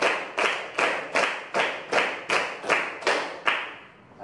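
A class of schoolchildren clapping together in unison, a steady beat of about two and a half claps a second, as part of a clapping game. The clapping stops about three and a half seconds in.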